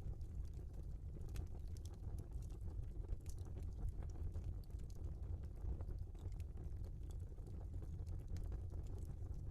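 Wood fire crackling: burning logs give off irregular sharp pops and snaps over a steady low rumble.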